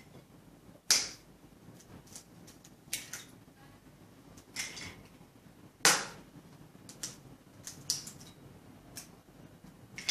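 Eggs being cracked one after another against the rim of a small bowl: sharp taps of shell on the bowl, the two loudest about a second in and just before six seconds, with lighter clicks of shells in between.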